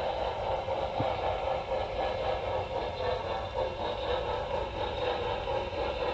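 Model train running along the track, heard from a camera car riding on the layout: a steady whir and clatter of small wheels and motor on the rails, with a single click about a second in.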